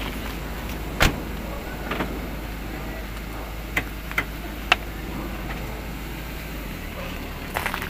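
A car door slamming shut about a second in, followed by several lighter clicks and knocks, over a steady low rumble.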